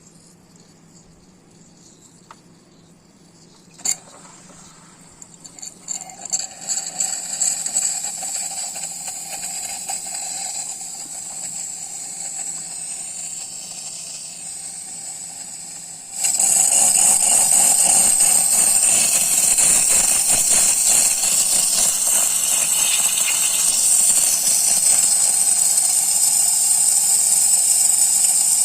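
Espresso machine steam wand: a click, then hissing with spitting and crackling from about six seconds in, turning suddenly about sixteen seconds in into a loud steady steam hiss that stops near the end.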